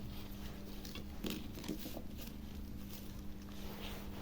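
Quiet workbench handling: a few faint, scattered clicks and taps over a steady low hum.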